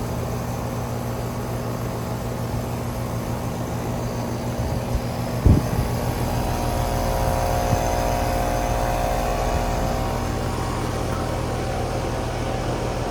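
Outdoor air conditioner unit starting up: a steady hum, a single clunk about halfway in, after which new tones join and the running sound grows a little louder as the unit comes up to speed.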